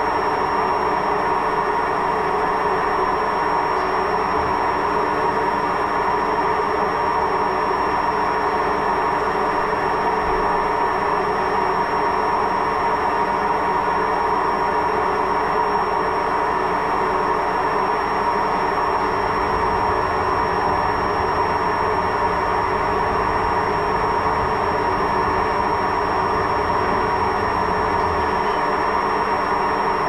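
Koenic front-loading washing machine running with a loud, steady mechanical rumble and constant humming tones from its drum. A deeper drone joins about two-thirds of the way through. The noise is the sign of worn, damaged drum bearings.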